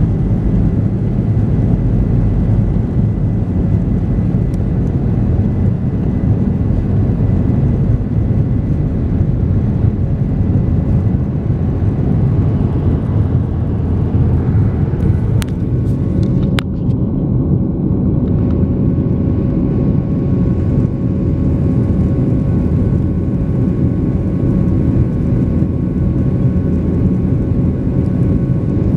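Boeing 737 jet engines at takeoff thrust heard from inside the cabin over the wing: a loud, steady roar through the takeoff roll, liftoff and initial climb. A few sharp clicks come about fifteen seconds in, after which the highest hiss thins out.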